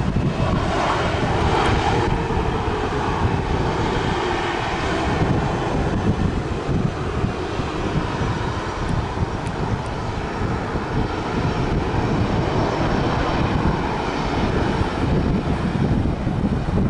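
Airliner's engines running loud, with a whining tone in the first few seconds over a broad, steady rush. Gusty wind buffeting the microphone adds a rough rumble underneath.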